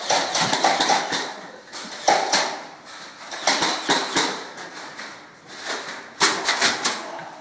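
Bursts of rapid clicking pops from foam-dart blasters firing, several shots a second, in short volleys with pauses between.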